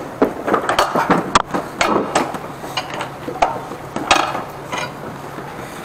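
Irregular knocks and clanks of hard objects being handled, some ringing briefly, over a faint steady hum.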